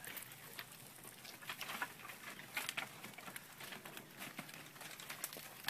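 Faint, irregular rustling with many light clicks and crackles scattered through it.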